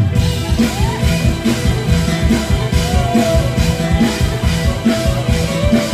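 Live mor lam band music for toei dancing: a drum kit keeps a steady beat under a wavering melody line.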